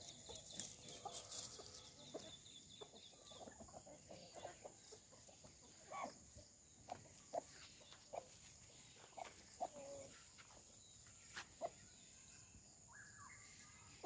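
Faint, occasional soft clucks from free-range desi chickens foraging, with short calls scattered mostly through the second half.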